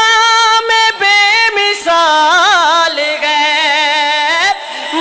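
A single voice singing an Urdu naat, drawing the words out in long held notes. It breaks into a wavering, ornamented run about two seconds in, then holds a lower note and pauses briefly near the end.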